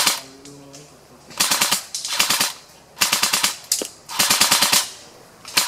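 Airsoft electric guns firing full-auto in about five short bursts of rapid clicks, each about half a second long, close to the microphone.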